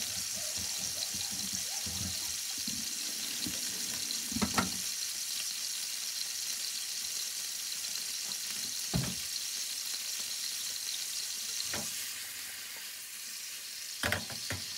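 A steady hiss, with a few short knocks or clinks about four, nine, twelve and fourteen seconds in.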